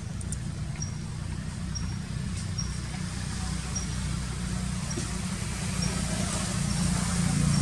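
Low, steady motor-vehicle engine hum that grows louder near the end, as if a vehicle is drawing closer. A faint short high chirp repeats about once a second over it.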